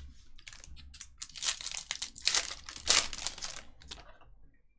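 Foil wrapper of a Topps Chrome card pack being torn open and crinkled, loudest a little past halfway and dying away near the end.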